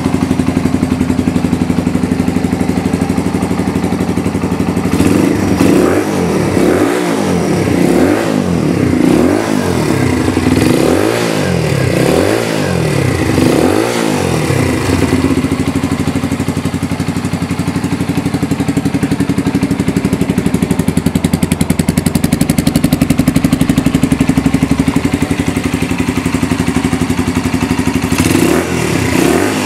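WK Trail 125 motorcycle's single-cylinder four-stroke engine running, revved in a run of short throttle blips about once a second, then settling back to a steady idle; the blipping starts again near the end.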